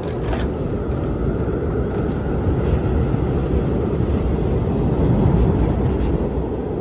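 Strong wind howling: a steady rush with a deep rumble and a faint high whistling tone over it.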